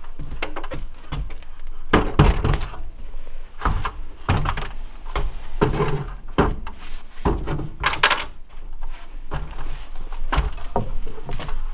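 Irregular wooden thunks and knocks as a strip of lumber is handled and set against wood ceiling framing from a stepladder.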